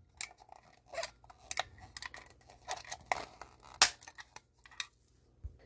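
Irregular small plastic clicks and scrapes as the battery compartment of a Henry Hoover desk mini vacuum is opened and handled.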